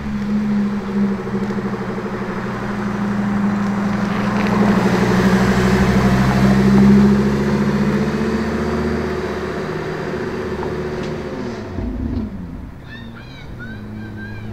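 Lamborghini Huracán's naturally aspirated V10 running at low, steady revs as the car rolls past, growing louder and then fading away as it drives off.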